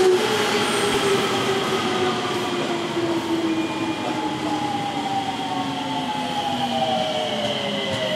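Odakyu 2000 series electric train braking as it pulls into a station. Its motor whine falls slowly in pitch in several tones as it slows, over the steady rolling noise of wheels on rail.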